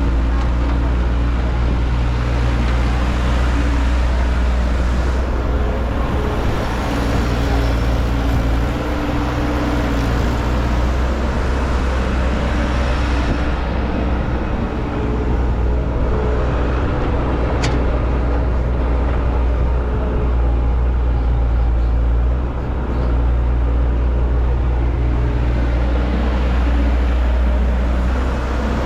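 Heavy machine engine running steadily at a constant pitch with a low, even drone.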